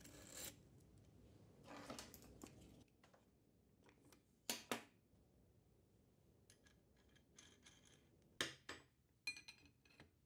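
Faint metallic clicks and clinks of a nut and washer being fitted onto a threaded shaft and tightened with a wrench. Two sharp clinks come about halfway through, and a few more near the end.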